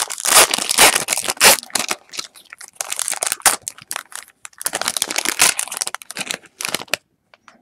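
Foil wrapper of a Topps Chrome football card pack being torn open and crumpled by hand: dense crinkling and crackling that stops abruptly about half a second before the end.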